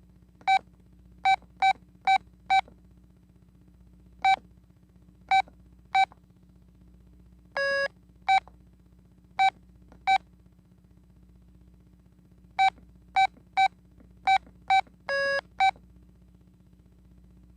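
Key beeps from an old Telit mobile phone: short single beeps of the same pitch at irregular intervals, as buttons are pressed. Two longer, lower tones come in, one about halfway through and one near the end. A faint steady hum lies underneath.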